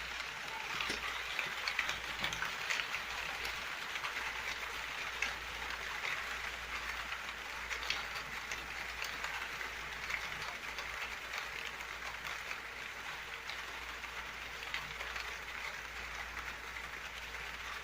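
Steady rain falling, a dense even hiss with many separate drop hits scattered through it.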